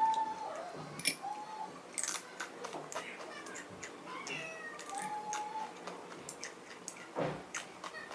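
Close-up eating sounds of crunchy tortilla chips with salsa being bitten and chewed, in sharp crackling crunches, with spoon and glass-bowl clinks. Three short, steady, high-pitched tones come at the start, about a second in, and about five seconds in.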